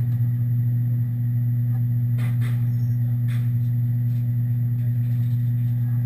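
Steady low mechanical hum, like a fan or motor running, even in level throughout, with a few faint taps between about two and three and a half seconds in.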